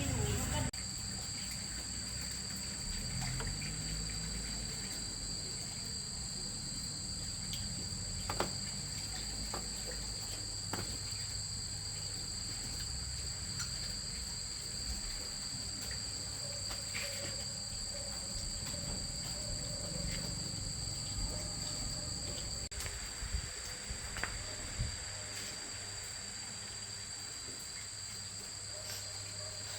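Crickets trilling steadily at a high pitch, with a few faint clicks and knocks scattered through.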